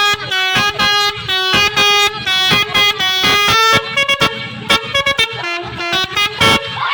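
Bus 'telolet' Basuri musical air horn playing a quick tune of stepped notes with short breaks between them, cutting off near the end.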